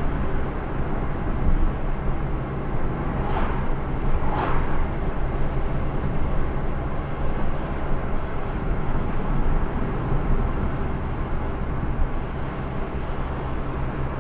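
A car driving along a road, with steady engine and tyre noise. Two short swishes come about three and four and a half seconds in.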